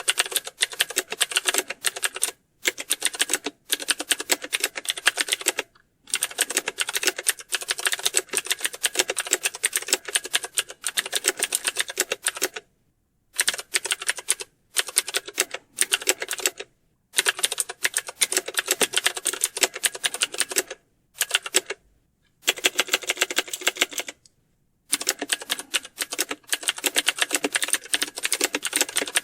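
Fast typing on computer keyboards, a dense stream of key clicks in runs of a few seconds, broken now and then by brief complete pauses.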